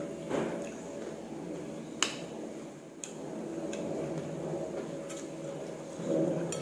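Eating from a bowl of noodle soup: chewing, with a sharp clink of a metal spoon against the ceramic bowl about two seconds in and lighter clicks of the spoon later.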